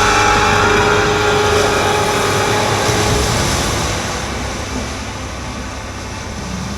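Loud rumbling, rushing sound effect over a theatre's speakers, with a held tone in the first few seconds, slowly fading away.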